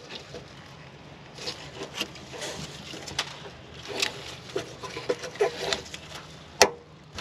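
Scattered light clicks and taps of hand tools working on a rusted brake fitting, with one sharp click near the end.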